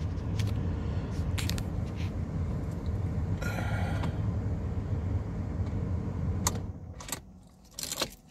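Steady low hum inside a 2013 Ford Escape with the ignition on and the engine not running. It cuts out about six and a half seconds in as the ignition is switched off, followed by a few sharp clicks and keys jangling.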